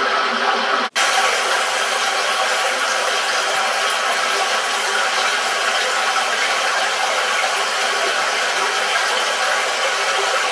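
Rushing water of a river and a rocky forest stream, a steady even rush. It breaks off for an instant about a second in as one stream clip cuts to the next.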